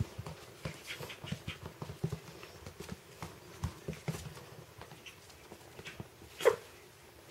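Young puppies' paws tapping and scrabbling on a wooden floor as they play, with one short, loud puppy yip about six and a half seconds in.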